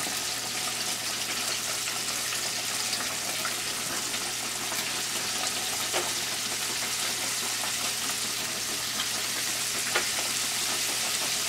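Cornmeal-dredged catfish fillets deep-frying in hot grease in a Dutch oven: a steady, even sizzle. The cook calls it a good fry, meaning the grease is hot enough. A couple of faint clicks come about six and ten seconds in.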